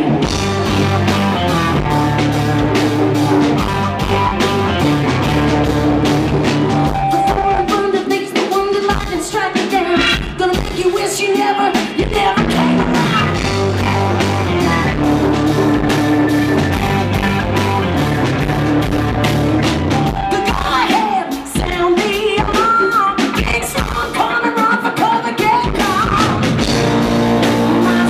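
Rock band playing live, with a woman singing over band instruments and drums.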